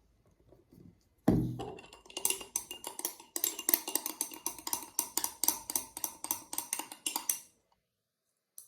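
Stirring utensil clinking rapidly against the side of a cup while slime mixture of glue and foam soap is stirred, about five light ringing strikes a second. It starts with a knock about a second in and stops about a second before the end.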